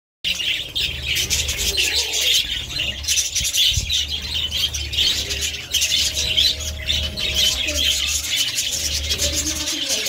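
A flock of budgerigars chirping and chattering nonstop, many birds calling over one another.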